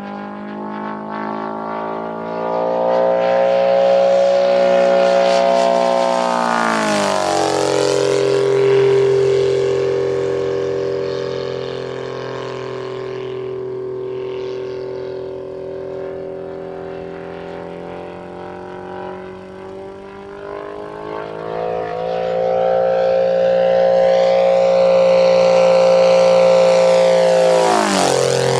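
Three-cylinder four-stroke KOLM IL 200 engine and propeller of a 1/3.3-scale RC Messerschmitt Bf-109 running steadily in flight. The note swells and then drops sharply in pitch as the plane passes, about seven seconds in and again near the end.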